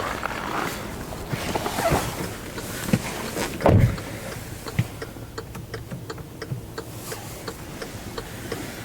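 Scattered light clicks and knocks, with one heavier low thump a little under four seconds in.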